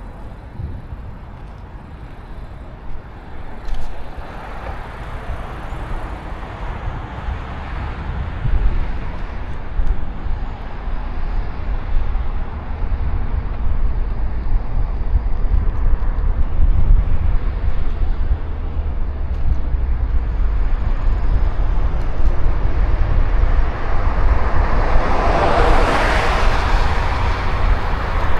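Road and traffic noise heard while riding a bike, with a deep wind-and-road rumble that builds steadily louder. A broad swell of traffic noise rises and eases off about 25 seconds in.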